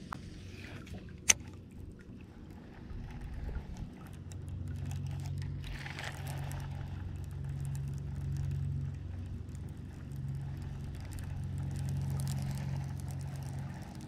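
A single sharp click about a second in, then a low steady motor hum that swells and fades from about four seconds on.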